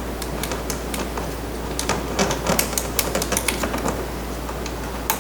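A quick run of small plastic clicks and rattles, busiest in the middle, as tabbed wiring connectors are unplugged from a car's door switch panel.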